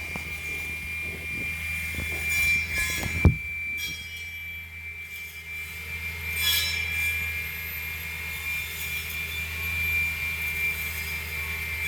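Tree-trimming circular saw attachment on a tracked excavator, its blade spinning with a steady high whine over the machine's low engine drone. There is a sharp crack about three seconds in, and bursts of crackling about halfway through as it works through branches.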